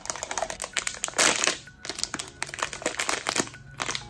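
Crinkling and rustling of a foil blind-box bag being pulled out of its cardboard box and handled, with a louder burst of crinkling about a second in.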